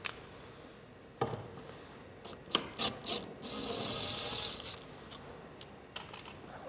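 Bosch cordless drill running for about a second on a screw in a bronze gudgeon, with clicks and knocks of the fitting and drill being handled before and after.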